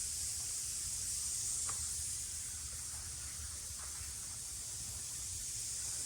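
Steady outdoor background: an even high-pitched hiss over a low rumble, with a few faint ticks.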